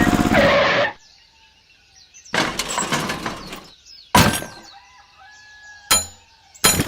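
A small mini-tractor engine runs and cuts off about a second in. Then comes a rattling crash, a sharp knock a second later and two short sharp cracks near the end.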